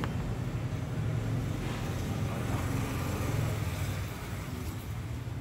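Steady low rumble of background noise, easing a little near the end.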